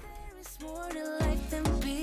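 Background pop music coming in about half a second in, with sustained synth tones and a steady kick-drum beat.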